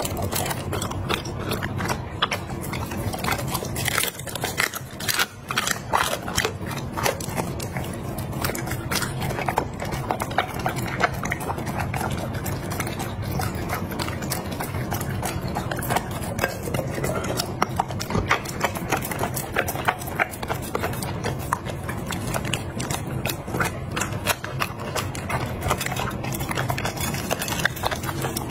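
Chocolate Labrador retriever chewing and crunching a raw meal, with wet mouth sounds and many quick irregular clicks as its teeth and muzzle knock against a glass plate, over a steady low hum.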